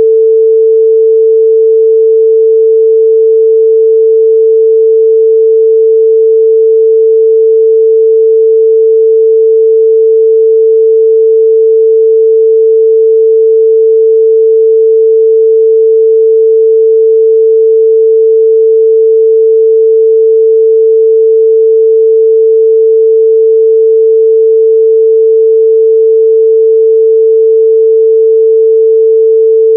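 A steady, loud 445 Hz pure sine-wave test tone, one unchanging pitch with no harmonics.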